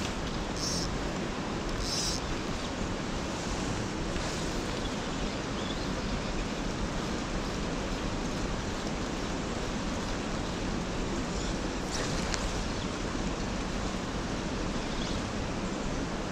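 River water rushing steadily through a rocky channel, a constant even rush, with a few brief faint swishes over it.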